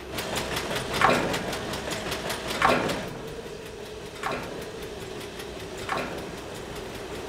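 Diesel fuel pump running: a steady hum under the fast, even ticking of its mechanical price and volume counter. A louder falling swish recurs about every second and a half, five times.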